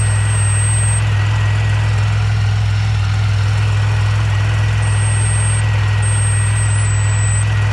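Supercharged 3.8-litre L67 V6 idling steadily, with a thin high whine held over it and a still higher whistle that cuts in and out a few times in the second half. The whine is taken for a small vacuum leak.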